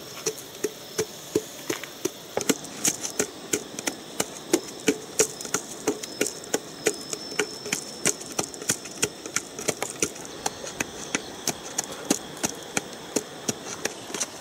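A wooden stick used as a pestle, pounding with quick, regular strokes: sharp knocks about three to four a second as food is crushed against stone and in a plastic cup.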